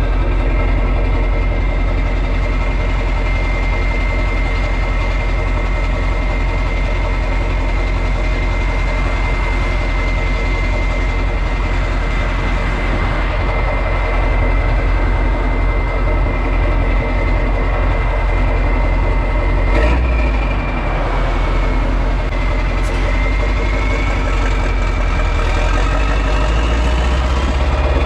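Renault Magnum's 16.4-litre Mack E9 V8 diesel running on an open exhaust pipe, with a thin, steady turbo whistle over the engine. About two-thirds through there is a short sharp knock and a brief dip. After that the turbo whistle climbs steadily in pitch toward the end.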